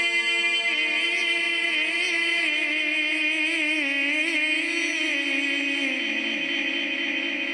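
A man's voice reciting the Quran in melodic tajweed style: one long held phrase with wavering, ornamented turns that steps down in pitch twice, amplified through a microphone with echo.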